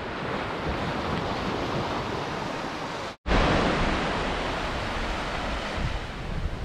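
Steady wind and surf noise on a sandy beach, with wind rumbling on the microphone. The sound cuts out for an instant about three seconds in and comes back a little louder.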